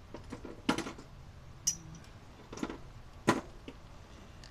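A handful of sharp metallic knocks and clinks from hand tools and small metal parts being handled in an engine bay, one with a brief high ring.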